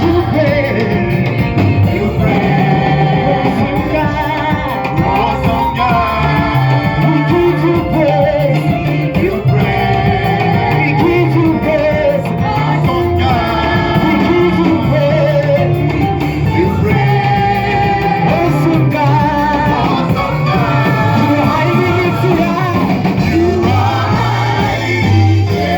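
Church praise music: singing with instrumental accompaniment, loud and continuous.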